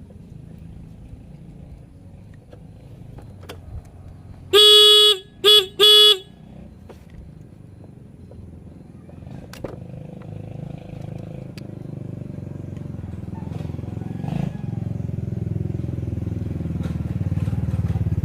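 Electric motorcycle horn honking three times in quick succession about five seconds in: one longer blast, then two short ones. A low rumble builds steadily louder through the second half.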